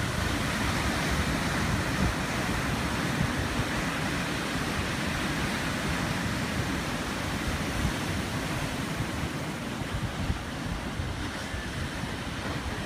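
Sea surf breaking and washing over a rocky shore in a steady, continuous rush, with wind gusting across the microphone.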